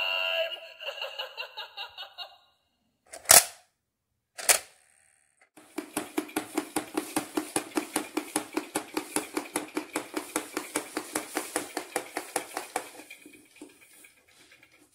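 A battery-powered green walking Halloween toy running across a wooden floor, its motor and gears clicking in an even rhythm of about four beats a second for several seconds before tailing off. Before it, the monster toy's electronic voice fades out, then two sharp clacks about a second apart.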